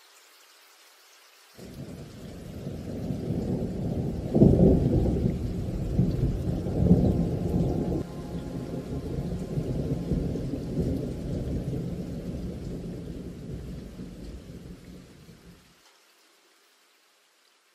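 A long, deep rumble like thunder. It starts suddenly about a second and a half in, swells to its loudest between about four and seven seconds, and slowly fades away near the end.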